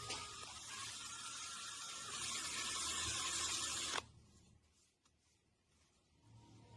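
Power drill turning a hole saw as it cuts into wood, a steady hissing cut with a faint whine, stopping suddenly about four seconds in.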